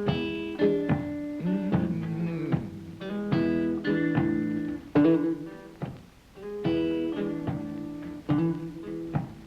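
Acoustic blues guitar playing without singing: plucked notes and chords, each note struck sharply and ringing on.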